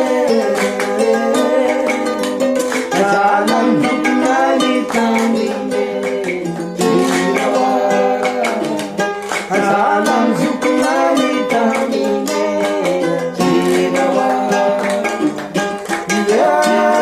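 Background music with plucked strings, ukulele-like, carried by a steady rhythm.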